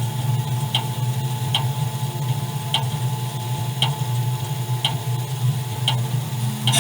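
Steady low machine drone with a light, sharp tick about once a second.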